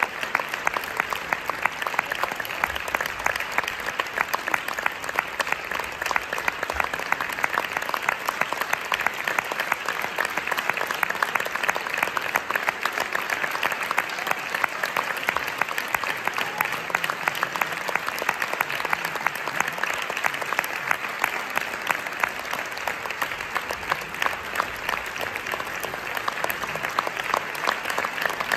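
A theatre audience applauding steadily, with many hands clapping at once in a dense, unbroken patter.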